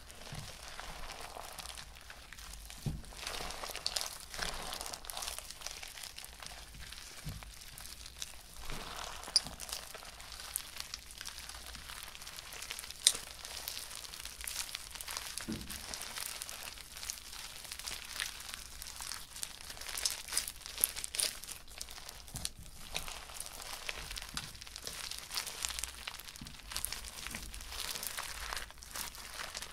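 Hands squeezing and stretching crunchy slime packed with foam beads, giving a steady stream of fine crackles and small pops, a few of them louder and sharper.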